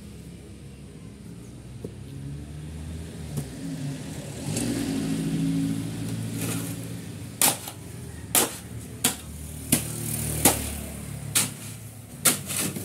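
An engine running with a low, steady hum that swells for a couple of seconds near the middle. Over it, in the second half, comes a string of about eight sharp knocks, roughly one a second.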